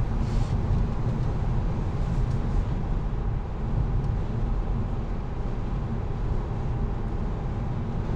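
Steady low road and tyre rumble inside the cabin of a moving Tesla Model 3, with no engine note.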